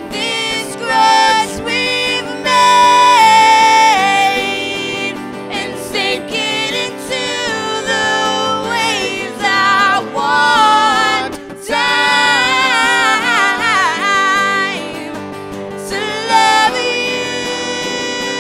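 A band playing a song, with a singer's wordless melody of held, wavering notes that slide between pitches over guitar chords.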